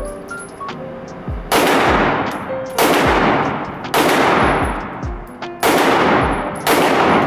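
Five handgun shots fired about a second to a second and a half apart. Each is sharp and loud, with a long echo off the walls of an indoor range.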